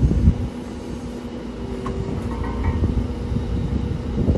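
Vehicle engine idling with a steady low hum, with uneven low rumbles of wind on the microphone near the start and end.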